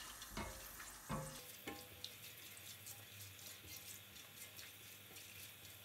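Whole spices sizzling faintly in oil over low heat in a stainless steel pan, with a few light taps of the stirring spatula against the pan in the first couple of seconds.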